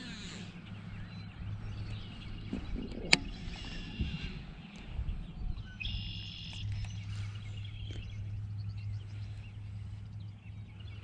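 Birds calling now and then over a steady low hum, with a single sharp click about three seconds in.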